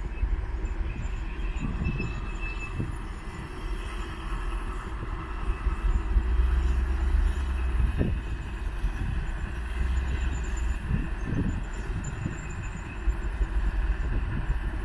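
Diesel engines of a Kobelco SK200 excavator and a loaded dump truck running together as a steady low drone, with a few short dull thuds scattered through it.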